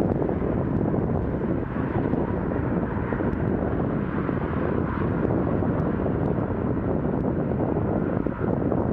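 Steady, even roar of motorway traffic, cars and trucks blending together with no single vehicle pass standing out.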